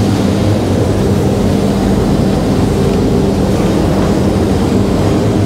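Steady mechanical drone with a low, even hum, unchanging throughout.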